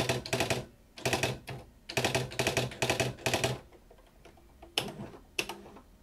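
Smith Corona electronic daisy wheel typewriter printing text in bold mode: runs of rapid, evenly repeated print strikes for the first three and a half seconds, then two single clicks near the end.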